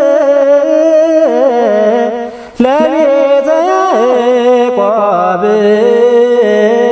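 Ethiopian Orthodox liturgical chant in Ge'ez of the evening prayer: a voice holds and slowly bends long melismatic notes, with a short break about two and a half seconds in.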